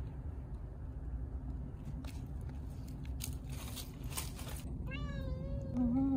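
A cat meowing: one long, wavering call about five seconds in, then a short lower call at the very end, a cat asking for food. A few soft rustles and clicks come before it.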